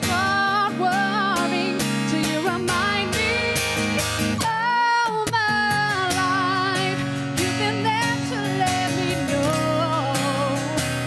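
A woman sings a slow Christian song with guitar accompaniment, holding long wavering notes. The low backing drops out for about a second halfway through, then comes back in.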